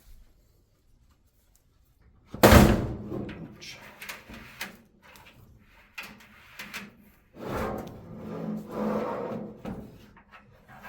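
Sheet-metal dryer drum being pulled out of its cabinet: a loud clunk about two and a half seconds in, then irregular metal knocking and scraping.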